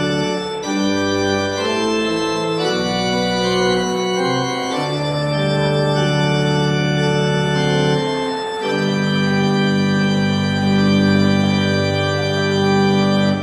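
Pipe organ playing the closing postlude in sustained chords that shift from one to the next, ending on a long held chord that stops sharply at the very end.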